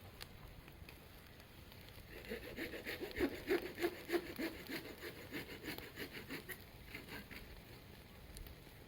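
Hand saw cutting through wood: quick back-and-forth strokes, about three a second, for roughly five seconds, loudest in the middle.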